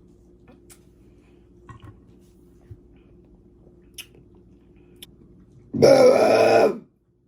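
A single loud, pitched belch lasting about a second, coming near the end after a few faint small clicks.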